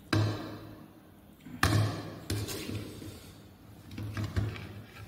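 A steel serving spoon knocking and scraping in a ceramic bowl of pork curry, with the bowl bumping on the table: about four sharp knocks, each dying away over about half a second.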